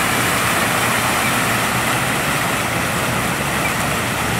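Steady splashing of a park fountain's water jets falling into its pool, with a low hum of road traffic underneath.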